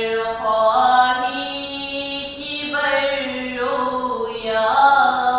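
A single unaccompanied voice chanting a devotional recitation, holding long, drawn-out notes that glide from pitch to pitch.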